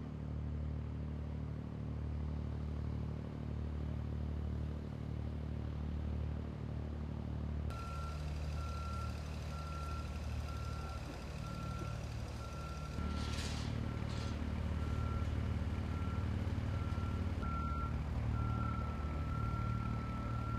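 Heavy work vehicle's engine running steadily; about eight seconds in, a backup alarm starts beeping roughly once a second, holding a continuous tone near the end. Two short hisses of air come around the middle.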